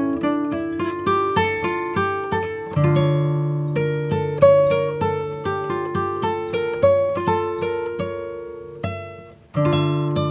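Background music: acoustic guitar playing plucked notes at an even pace, fading briefly about nine seconds in before starting again.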